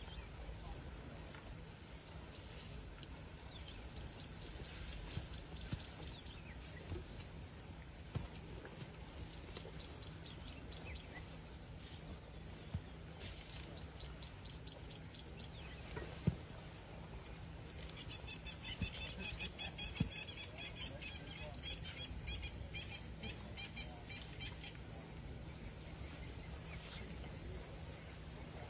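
Outdoor wildlife ambience: insects chirping steadily in a fast pulsing rhythm, joined from about 18 s to 25 s by a faster rattling trill from a bird or insect, over a low rumble, with a few sharp clicks.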